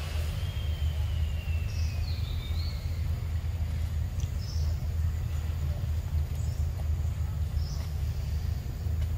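Outdoor forest ambience: a steady low rumble with short high bird chirps every second or two. Near the start, one long whistle slides down in pitch over about two and a half seconds.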